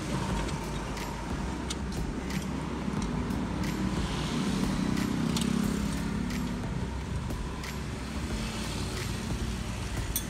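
A motor vehicle's engine running, swelling about four seconds in and easing off a couple of seconds later, with a few light clicks.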